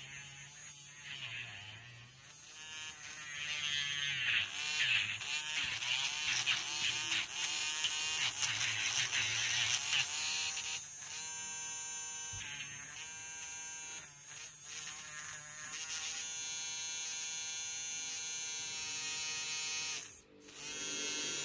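Electric nail file (nail drill) motor whining. For the first half it is louder and rougher, its pitch wandering up and down. About eleven seconds in it settles to a steady whine, cuts out for a moment near the end, then starts again.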